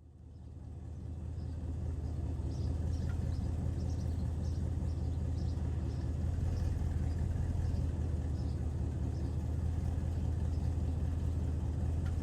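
A motor vehicle's engine running steadily, a low rumble that fades in over the first couple of seconds.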